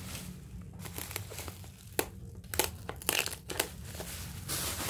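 Plastic bubble wrap crinkling and rustling as it is pulled off and bunched by hand, with irregular sharp crackles.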